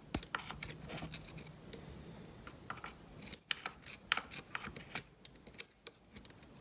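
A small metal pick scraping and clicking as it digs caked, oily gunk out of the bar-mount area of a Poulan Woodshark chainsaw, clearing the clogged bar-oil feed. The scratches come irregularly, faint at first and sharper and louder from about halfway.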